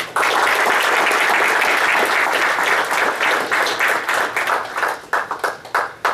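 Audience applauding: dense clapping that thins out near the end into a few scattered claps, then stops.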